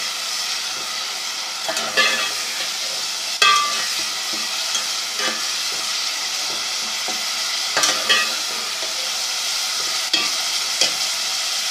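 Minced meat sizzling steadily as it fries in ghee in a pot, with a spoon scraping and knocking against the pot several times as it is stirred.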